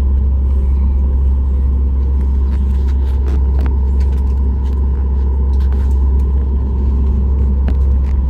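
Steady, loud low rumble inside the cabin of a Boeing 737 MAX 8 airliner, with scattered light clicks and rattles.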